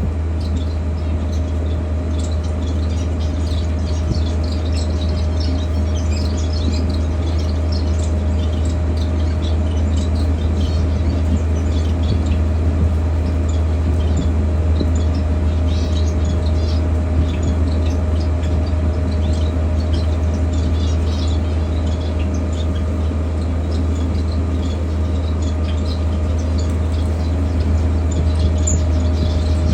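Many birds chirping in short, high calls scattered throughout, over a loud, steady low hum.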